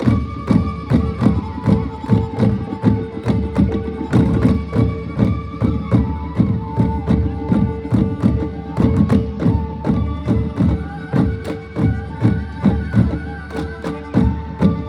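Manipuri drums (pung) beaten in a fast, dense rhythm, over a steady held drone note and a melody that moves in steps above it.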